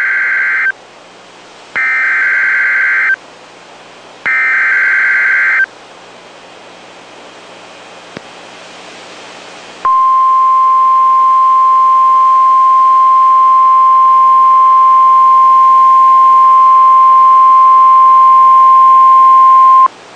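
NOAA Weather Radio Emergency Alert System signal opening a severe thunderstorm warning: three harsh warbling SAME data bursts, the first already under way, then a few seconds of faint radio hiss, then the steady 1050 Hz warning alarm tone held for about ten seconds until it cuts off just before the end.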